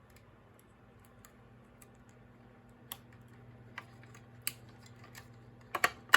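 Sparse light clicks and taps of a plastic smoke alarm being handled, a few single ones and then a quick, louder cluster near the end, over a faint steady hum.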